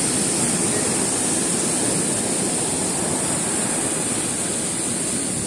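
Sea surf breaking and washing over a rocky shore: a steady rush of waves, with a constant high hiss over it.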